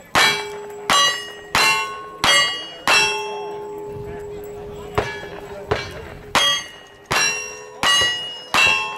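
Gunshots in a cowboy action shooting stage, each followed by the ringing clang of a hit steel target. There are five quick shots, a pause of about two seconds with a couple of faint knocks, then four more shots at the same pace.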